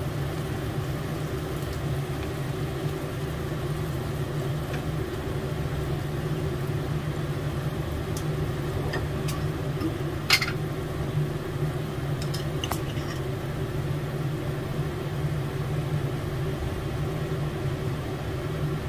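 A steady low machine hum, like a fan or motor, with a few light clicks and taps, the sharpest about ten seconds in.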